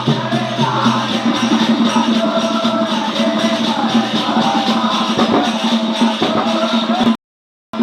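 Bundeli devotional folk song to the goddess Devi (a bhagat): a voice singing over a steady drone and rattling, jingling percussion. It cuts off abruptly near the end.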